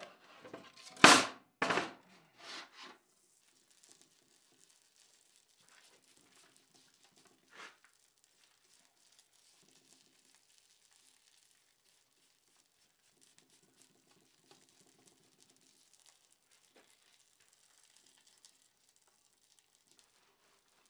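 A few sharp knocks in the first three seconds, then a faint hiss with small crackles as paste wax sizzles on the hot forged-steel candelabra while it is rubbed on.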